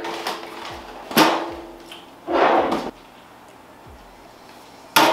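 Cereal boxes and glass bowls being handled on a table. There are a few sharp knocks, and the one about a second in rings briefly like glass. A short rustle comes near the middle.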